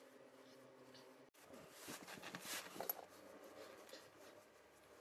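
Faint scraping and rubbing under the truck, with a brief cut about a second in, then a louder stretch of scratchy rubbing and a single knock near the three-second mark.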